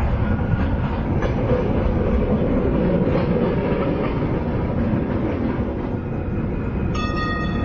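Tram running on its rails, a steady low rumble with wheel clatter over the track. About seven seconds in, a steady pitched tone with several notes comes in.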